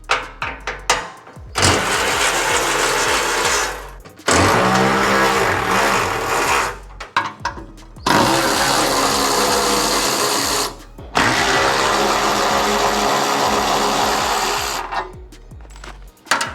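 A power tool running in four long bursts of a few seconds each, with short pauses and small clicks between them, as it spins out the bolts holding an engine skid plate.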